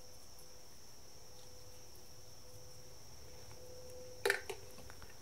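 Faint steady electrical whine with a low hum underneath, and one sharp click about four seconds in.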